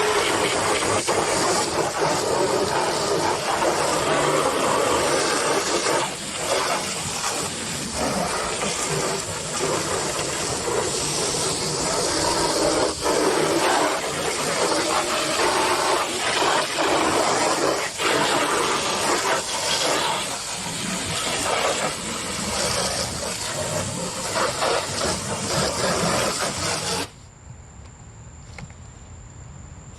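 Garden hose spraying water onto a truck tool box, rinsing off degreaser: a steady loud hiss of spray that cuts off abruptly a few seconds before the end. A faint steady insect trill is left afterwards.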